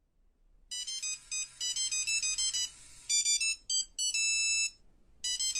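Phone ringtone: a quick melody of high electronic notes that starts about a second in, breaks off briefly twice and repeats.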